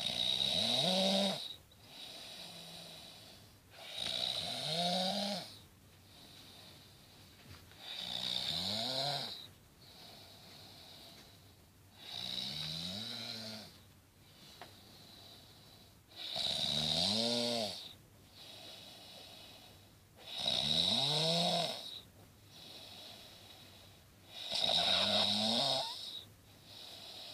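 A person snoring heavily from exhaustion: seven loud, pitched snores at a steady pace of about one every four seconds, with quieter breaths in between.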